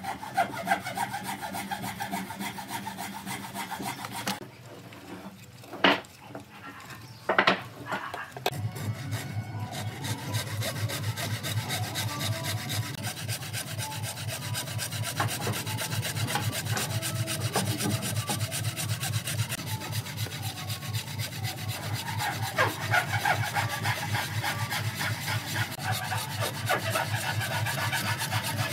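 Wooden-framed bow saw cutting by hand through a dry, weathered tree stump: steady back-and-forth rasping strokes through the wood from about eight seconds in. Before the sawing starts there are softer handling sounds and two sharp clicks, the loudest sounds in the stretch.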